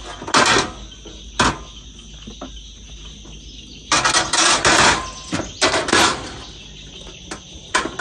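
Metal clanks and rattles from a Coleman two-burner camp stove as it is shut down: the burner knob turned, the grate handled and the lid closed. A steady insect chirring runs underneath.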